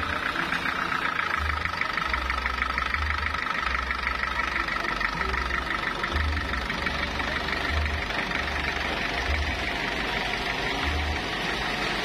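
Multi-cylinder diesel engine of a sawmill power unit running steadily at idle, with a rapid even clatter.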